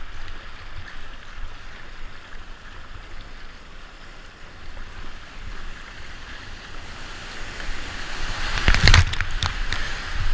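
Rushing floodwater on a weir with kayak paddle splashes. It grows louder near the end as the kayak reaches the whitewater, with a burst of loud splashes and knocks about nine seconds in.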